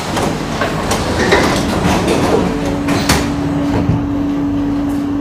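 Singapore MRT train's sliding doors closing, with knocks about one and three seconds in over the rumble of the carriage. A steady hum sets in about two seconds in.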